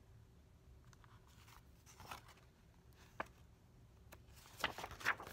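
Quiet room with faint handling of a hardcover picture book: a small click a little after three seconds in, then a short run of paper rustles near the end.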